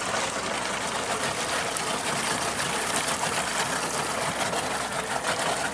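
Steady rushing water noise from a fishing boat moving through the water while trolling.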